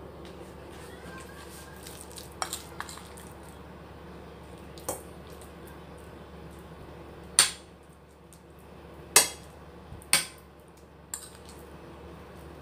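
Metal spoon clinking against a ceramic plate and bowl while scooping and pressing minced pork mixture into a patty: several sharp clinks, the three loudest in the second half, over a steady low hum.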